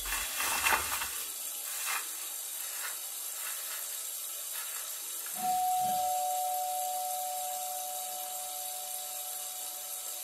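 Steady hiss with faint rustling of a paper tissue being handled. About five seconds in, a soft low thud brings in a held two-note electronic tone that slowly fades.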